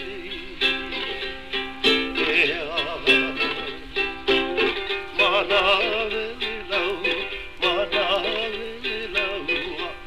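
Ukulele playing a rhythmic, strummed tune with a wavering melody line over it, in the narrow, dull sound of a 1960s flexi-disc recording.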